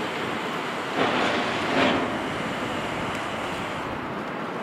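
Jet engine noise from a departing Airbus A319, a steady rushing noise mixed with wind on the microphone, swelling twice, about one and two seconds in.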